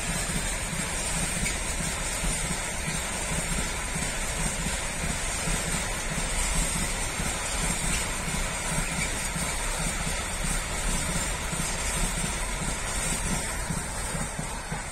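Container freight train wagons rolling past: a steady rumble and rush of steel wheels on the rails, fading near the end as the tail of the train moves away.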